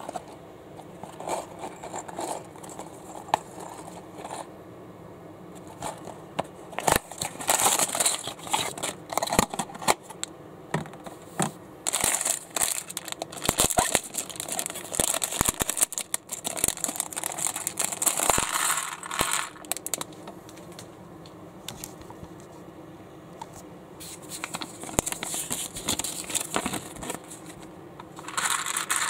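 Unboxing handling noise from a small plastic building-brick set: the cardboard box is opened, the clear plastic parts bag crinkles and tears as it is opened, and the loose plastic bricks clatter and click against each other and the baseplate.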